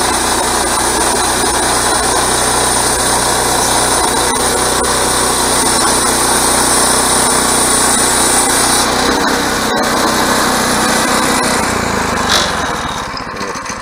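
Woodland Mills HM122 portable bandsaw mill running under load, its gasoline engine driving the band blade through a log. A high hiss in the noise stops about nine seconds in, and the running eases near the end.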